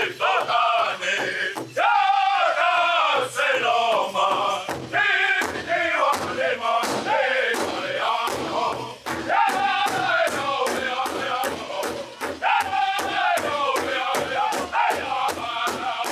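Powwow drum group singing: men's voices chanting high-pitched over a big drum struck in a steady beat of about three strokes a second.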